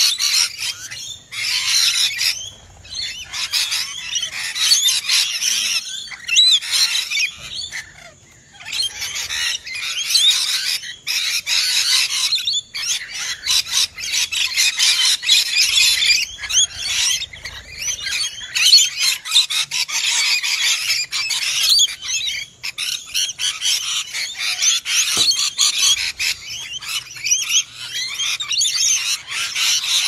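A flock of rainbow lorikeets screeching and chattering nonstop, many high-pitched calls overlapping, with short lulls about three seconds and eight seconds in.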